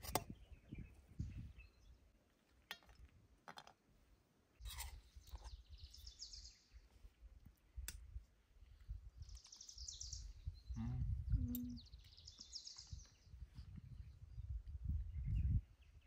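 Birds chirping in short trilled bursts every few seconds over a low wind rumble, with occasional sharp clinks of spoons and forks against a metal serving plate.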